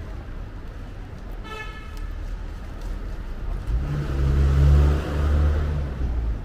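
A short car horn toot about a second and a half in. A few seconds later a motor vehicle passes close by, its engine a loud, low, steady sound lasting about two and a half seconds, over street traffic noise.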